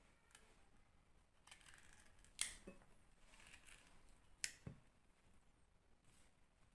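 Raw turnip being cut and scraped out from the middle: faint scraping with two sharp, crisp cuts about two seconds apart.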